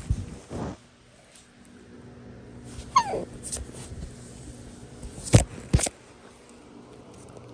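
A basenji gives one short whine that falls in pitch, about three seconds in. Sharp knocks at the start and twice a little after five seconds in are louder than the whine.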